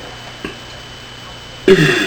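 A young woman's deliberate loud burp near the end, starting high and falling in pitch.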